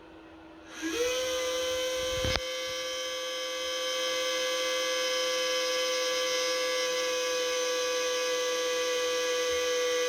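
Ender 3 V3 SE 3D printer's fans spinning up at power-on: a whine rises quickly about a second in and settles into a steady pitched whine with a hiss of air. A brief click comes about two seconds in.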